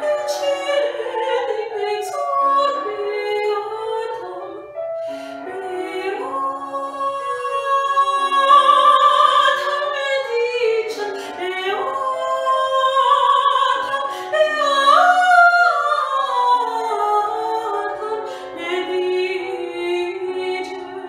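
A woman singing solo in a classical, operatic style, moving through long held notes with vibrato and a rising phrase about halfway through.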